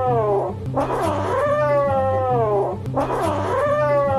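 A cat yowling in long drawn-out meows, one about every two seconds, each sliding down in pitch at its end, over background music with a low bass line.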